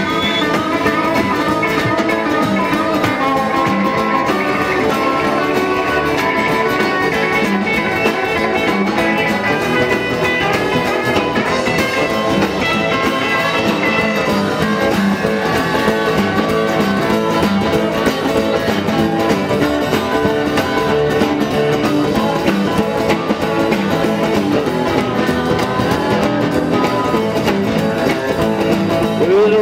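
Live rock'n'roll band playing an instrumental break on acoustic guitars, with no singing.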